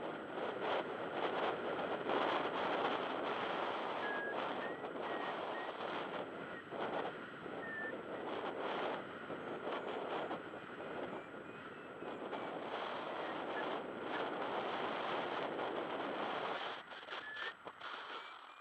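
Wind rushing over the microphone of a paraglider in flight: a steady blowing noise that swells and eases, dropping off near the end. A few short high chirps sound over it.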